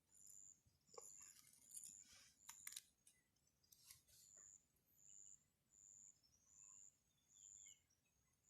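Faint high-pitched chirps, short flat notes repeating about once a second, with a few clicks and rustles in the first three seconds.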